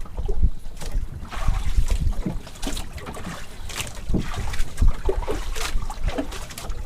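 Water sloshing against a boat's hull in irregular splashes, with wind rumbling on the microphone.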